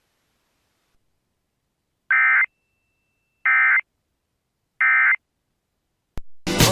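EAS end-of-message signal: three short bursts of warbling digital SAME data tones, about a second apart, which mark the end of the emergency alert. Near the end there is a click, then music starts.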